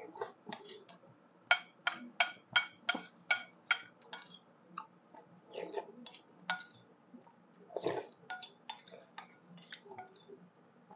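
Spoon clinking against a soup bowl during a meal: a quick run of about nine clinks, roughly three a second, then scattered clinks.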